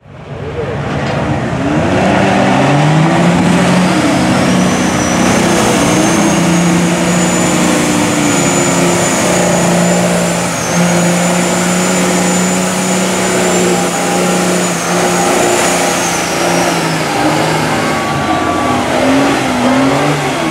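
Mud trucks on huge tyres running hard at high revs through a water-filled mud pit. The engine note climbs over the first few seconds and holds steady under a high whine, then drops back after about seventeen seconds. Water sprays and churns under the tyres.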